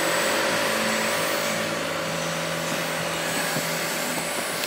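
Steady whirring of a small motor or blower, with a low steady hum underneath.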